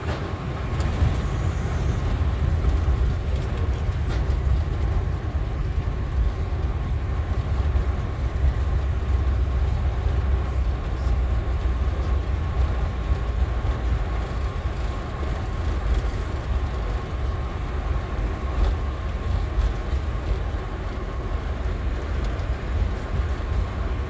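Boeing 747 rolling out on the runway after touchdown, heard from the flight deck: a steady low rumble of the wheels and airflow, with a faint steady whine above it.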